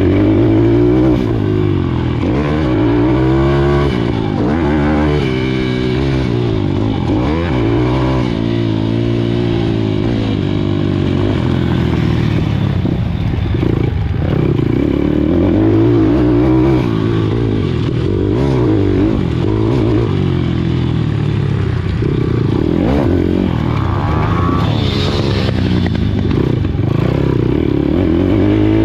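Pit bike engine at racing speed, revving up hard and dropping back over and over as the rider accelerates out of corners and shuts off for jumps and turns, heard close-up from on board, with rattling from the bike.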